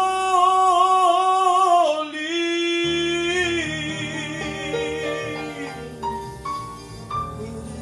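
A man singing into a microphone, holding one long note with vibrato, then a second. His voice drops out after about five seconds while the accompanying music carries on.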